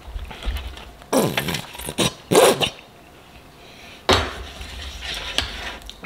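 A breaded corn dog on its skewer knocking and scraping against a metal baking tray as it is picked up and dragged through the sauce: a few sharp knocks and scrapes, the loudest about two and a half seconds in and another about four seconds in.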